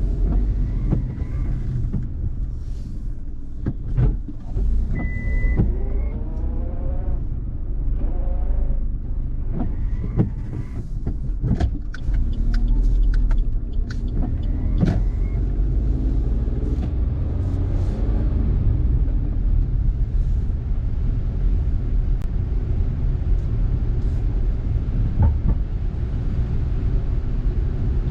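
Road noise inside a car driving on a wet road: a steady low rumble of tyres and engine. Scattered sharp clicks and a few short squeaky tones fall mostly in the first half.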